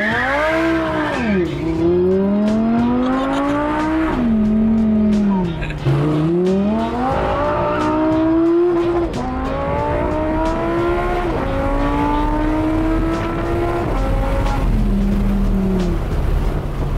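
Car engine under hard acceleration, heard from inside the cabin: the revs climb steadily and drop sharply at each upshift, about four times, then ease to a lower steady pitch near the end.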